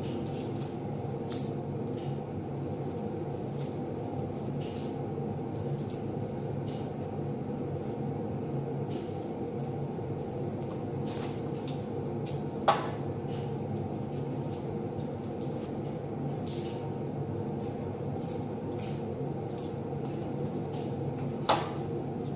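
Garlic being peeled and trimmed with a kitchen knife: frequent small crackling clicks of blade and papery skins, with two sharper clicks, about halfway through and near the end, over a steady low hum.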